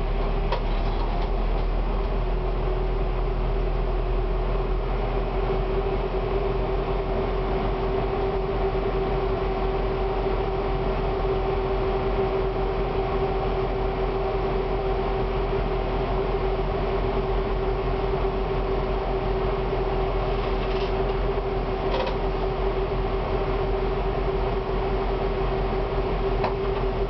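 Konstal 105Na tram standing at a stop, heard from inside the driver's cab: a steady mechanical-electrical hum with a constant mid-pitched tone, and a couple of faint clicks near the end.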